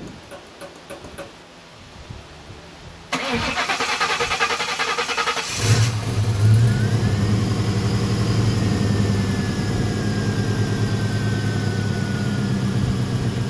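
Car engine cranked by the starter for about two seconds, hesitating a little before it catches. It flares up in revs briefly, then settles to a steady idle.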